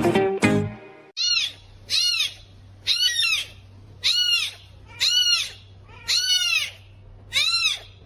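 A cat meowing over and over in short, high-pitched mews that rise and fall, about one a second and seven in all. They start after a short stretch of guitar music that ends about a second in.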